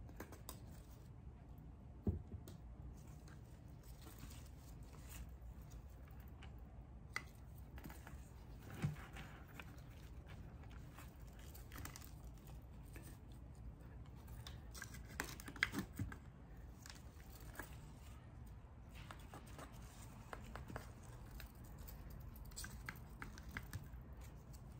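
Faint rustling and crackling of hands working in a potted plant arrangement: leaves and stems brushed and potting soil pressed in around them, with a few sharper clicks, over a low steady hum.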